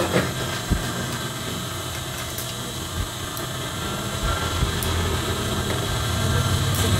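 Industrial sewing machine's motor humming steadily while the needle is stopped, growing a little louder in the second half. A few light clicks and snips come from scissors trimming the thread.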